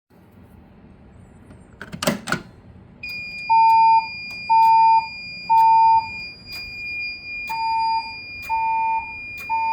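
Fire alarm voice-evacuation system going into alarm with the temporal-three evacuation tone: three loud half-second beeps a second apart, a pause, then three more. A steady high-pitched tone comes on just before the beeps and holds under them, with faint ticks about once a second. A couple of clicks sound about two seconds in.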